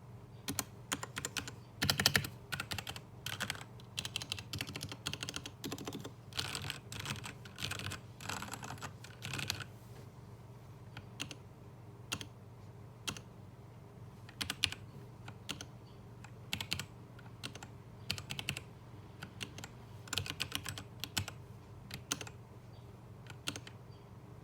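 Royal Kludge RK855 mechanical keyboard with stock RK Red linear switches being typed on. The typing is fast and dense for the first ten seconds or so, then turns into slower, scattered single keystrokes.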